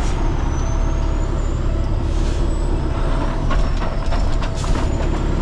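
Heavy rotator tow truck's diesel engine running steadily, with wind buffeting the microphone, a few clicks and a short hiss about two seconds in.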